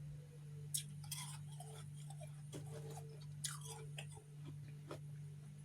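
Refrozen freezer frost chunks being bitten and chewed: about five crisp crunches, some in quick clusters, over a steady low hum.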